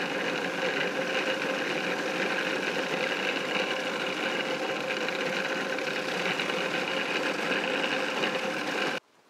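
Electric food processor running steadily, chopping herbs, anchovies, capers and garlic into salsa verde while olive oil is drizzled in through the feed tube. It switches off abruptly about nine seconds in.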